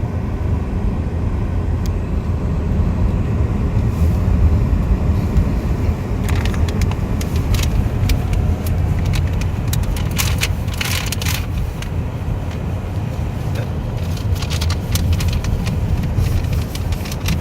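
Road noise inside a moving car: a steady low rumble of tyres and engine, with scattered sharp clicks and ticks coming in from about six seconds in.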